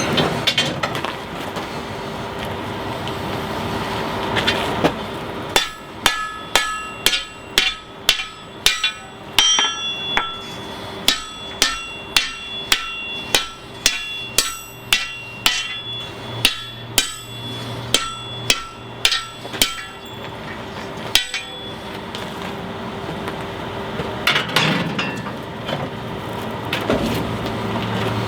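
Blacksmith's hammer striking steel on an anvil, about two blows a second for some fifteen seconds with the anvil ringing after each blow, then one last blow. A steady rushing noise runs before and after the hammering.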